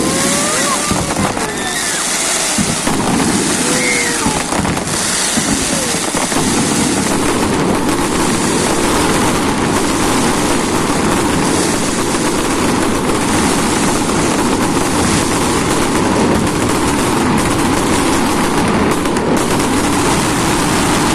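Fireworks going off in a dense, unbroken barrage of bursts and crackling, with whistling sounds sliding up and down in pitch during the first few seconds.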